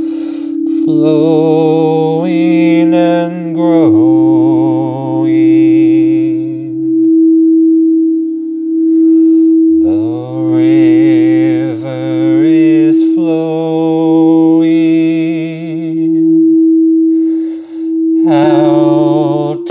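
A singing bowl rings with one steady, unbroken tone. Over it a voice chants long wordless vowel tones, several phrases of a few seconds each, with a wavering pitch.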